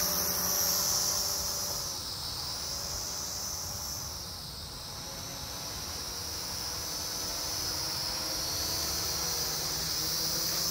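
Small foldable quadcopter's motors and propellers whining in flight, a steady high-pitched buzz. It fades as the drone climbs away, a few seconds in, and grows louder again as it comes back down.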